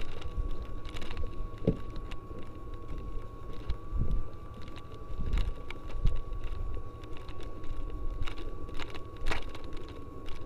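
Footsteps through long grass and the rattle of gear as a player walks, heard as uneven thumps and clicks over a low wind rumble on the microphone.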